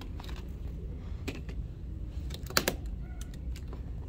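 Plastic magnetic building tiles clicking and clacking as children snap them together and set them down on a light table: irregular sharp clicks, the loudest about two and a half seconds in, over a low steady hum.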